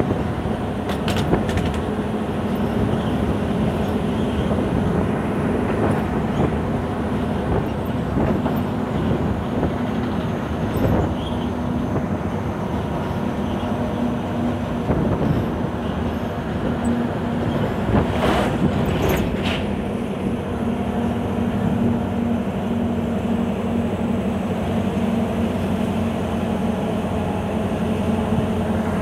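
Scania 164L 580 V8 truck engine running steadily, heard from inside the cab over tyre and road noise, with a few sharp knocks, the loudest a pair about eighteen seconds in.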